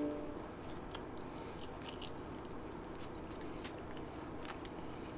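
Faint chewing with small crunches, a person eating fried chicken close to the microphone. A bell-like ringing tone dies away just at the start.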